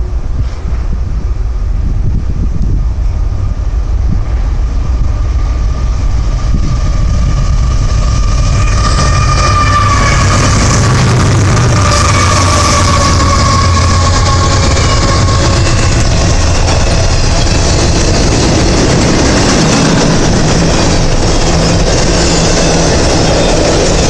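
CSX intermodal freight train approaching and passing close by: the diesel locomotive's rumble and a high whine grow louder over the first several seconds, the whine dropping in pitch as the locomotive goes by about halfway in. Then comes the steady rumble of container cars rolling past on the rails.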